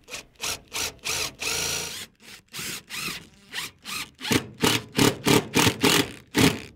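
Hand saw cutting through wood with steady back-and-forth strokes at about three a second. About four and a half seconds in, the strokes get faster and louder.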